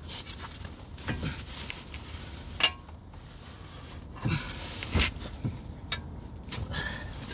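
Scattered metallic clinks and knocks as the Toyota Verso's front drive shaft and its outer CV joint are worked by hand to free them from the wheel hub, with one sharp clink about two and a half seconds in.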